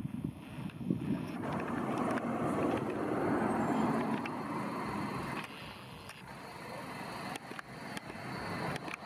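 A passing vehicle's rushing noise that builds, peaks and fades within a few seconds, followed by quieter background with a few faint clicks.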